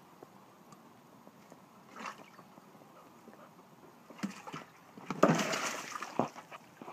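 Water sloshing in a flexible plastic tub as a dog moves in it. About five seconds in the tub tips over and the water pours out onto concrete in a loud rush, followed by a knock of the tub.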